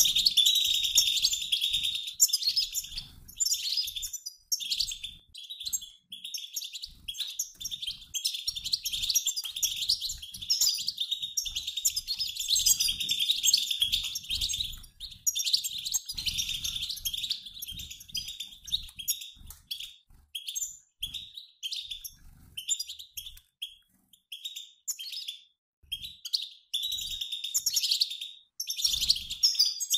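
A mixed group of European goldfinches, males and females, twittering in rapid high chatter with brief pauses, like a flock in flight: the goldfinch 'batbata' call used to stimulate male goldfinches to sing.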